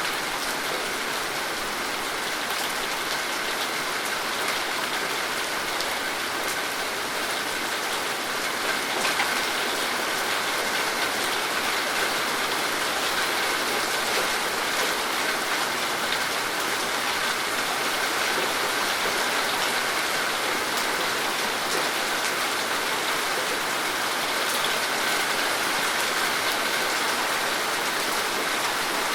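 Steady rain falling and pattering on surfaces, with many small drop ticks in an even hiss.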